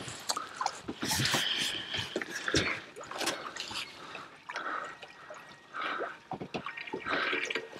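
Water lapping and dripping against the hull of a small fishing boat, with irregular light clicks and knocks.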